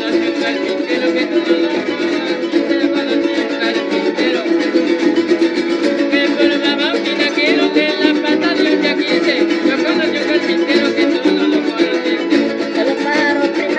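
Son jarocho played by a string ensemble of jaranas and harp: an instrumental passage between sung verses, with fast, even strumming under a plucked melody.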